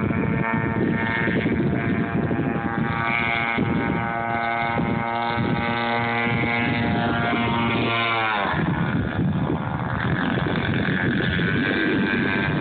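Radio-controlled boat's motor running at a steady high pitch, dropping sharply in pitch about eight seconds in, then running on with a rougher, noisier sound.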